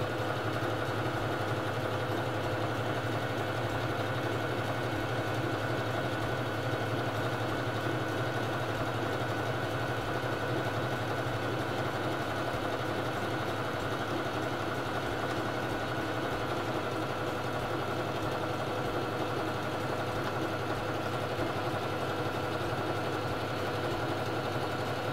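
Singer Fashion Mate 3333 sewing machine running at an even speed while sewing a feather stitch, with a steady motor hum and a high whine.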